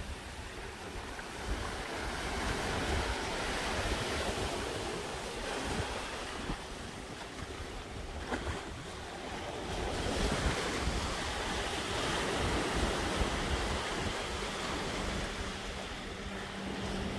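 Surf washing onto the rocks of a jetty, swelling and easing, with wind buffeting the microphone. A low steady hum comes in near the end.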